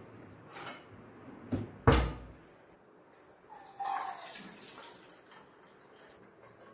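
A few knocks and clatters of kitchen utensils, the loudest about two seconds in, then water pouring and splashing as boiled whole green gram are tipped from a pressure cooker into a steel strainer to drain.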